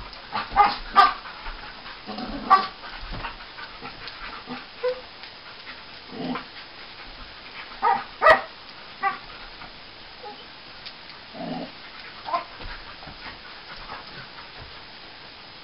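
English springer spaniel making a string of short, odd vocal noises while play-wrestling, the loudest in a cluster at the start and a pair about eight seconds in, thinning out toward the end.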